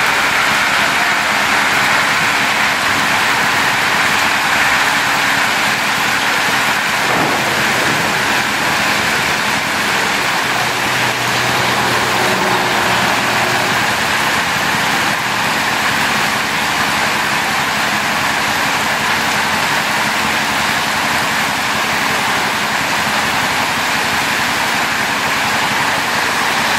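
Heavy rain mixed with hail pelting a paved road, a loud, steady downpour.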